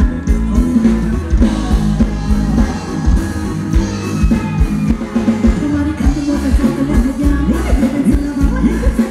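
Live band playing Thai ramwong dance music through a PA, with a singer over a steady drum beat.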